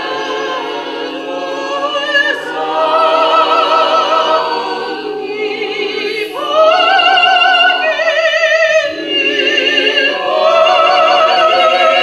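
Mixed choir of men, women and children singing long held chords in several phrases, with a strong vibrato voice carrying on top.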